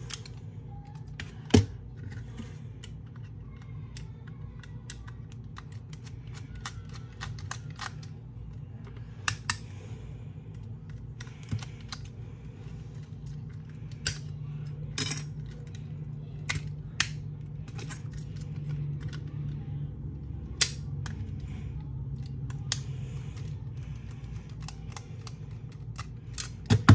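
Small plastic toy robots being handled and clicked together, giving irregular sharp clicks and taps over a low steady hum. The loudest click comes about a second and a half in, and another just before the end.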